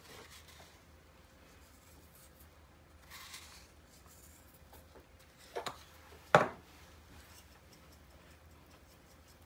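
Faint handling sounds of seasoning going into a mixing bowl: salt pinched from a wooden salt box, then a pepper mill grinding pepper over the bowl. Two sharp knocks come about five and a half and six and a half seconds in, the second the loudest sound.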